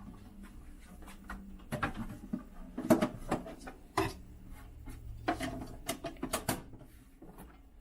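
Handling noise: a run of sharp clicks, knocks and rubs from hard parts being moved, in two bursts about two seconds in and about five seconds in, over a faint low hum.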